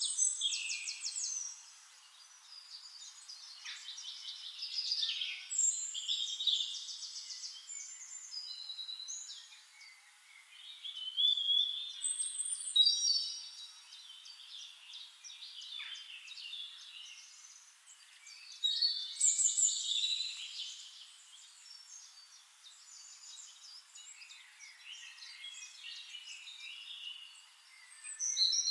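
Several songbirds singing and calling over one another in a forest: quick trills, chirps and whistled phrases that come in bursts, loudest near the start, around the middle and again near the end.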